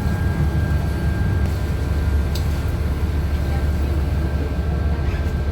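Cabin sound of a 2016 New Flyer XDE60 hybrid articulated bus (Cummins ISL9 diesel with Allison hybrid drive) running: a steady low drivetrain rumble with a faint, steady high whine over it. This bus is said to sound weird compared to other XDE60s.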